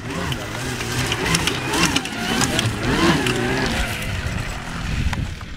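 Electric snowmobile running through a tight snow course: its track clattering and hissing over packed snow, with a motor whine whose pitch rises and falls as the rider works the throttle. It is loudest as it passes close, about three seconds in.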